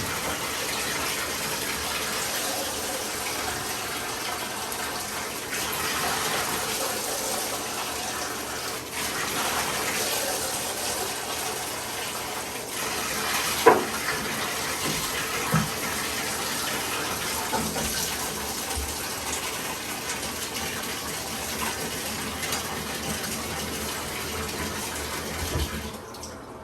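Tap water running steadily into a bathtub during a puppy bath, with a couple of brief knocks about halfway through; the water stops just before the end.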